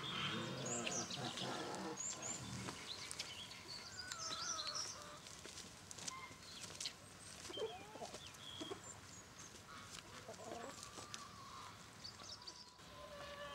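Brahma chickens clucking softly: low clucks in the first few seconds, then scattered short high chirps and a few calls that rise and fall in pitch.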